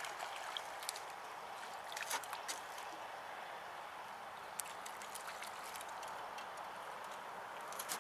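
Steady outdoor hiss of wind over water and reeds, with a few scattered light clicks and knocks, a cluster of them about two seconds in, as an angler handles his rod and tackle on the bank.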